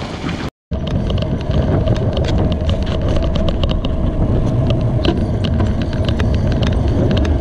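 Wind buffeting the microphone of a handlebar-mounted camera on a moving bicycle, with road noise and many rapid clicks and rattles from the bike and mount. The sound drops out completely for a moment about half a second in.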